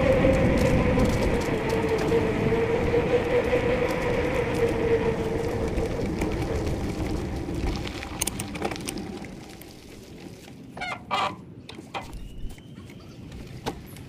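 Knobby bicycle tyres humming on a tarmac path, a steady rolling noise with a wavering tone that fades away as the bike moves onto a soft pine-needle path. A few short bird chirps follow near the end.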